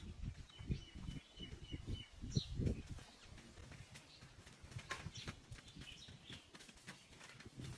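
Several birds chirping and calling, one giving a short rapid trill about half a second to two seconds in. Low thumps come through in the first few seconds.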